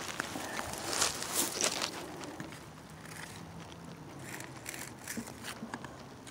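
Footsteps crunching through dry grass, pine needles and twigs, with crackling and rustling of brush as someone picks her way down a brushy bank. The crunching is thickest in the first two seconds, with a few more steps later on, over a faint low hum in the second half.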